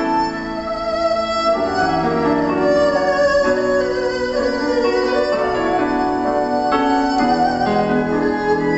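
Erhu playing a slow melody of held, bowed notes with vibrato, accompanied by electronic keyboard chords.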